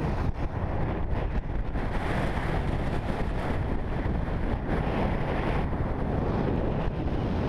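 Wind buffeting a GoPro's microphone while skiing downhill, mixed with the steady hiss and scrape of skis running over firm, groomed snow.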